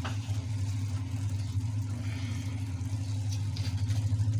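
A steady low mechanical hum, like a motor or fan running.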